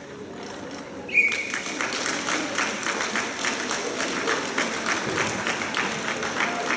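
Audience applause breaking out about a second in, at the end of a synchronized swimming routine, opening with a short high-pitched cheer and then going on as steady clapping.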